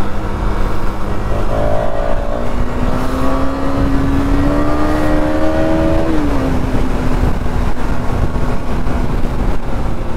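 KTM Duke 250's single-cylinder engine pulling hard through a gear, its note rising steadily, then dropping sharply at a gear change about six seconds in and settling. Heavy wind rushes over the microphone throughout.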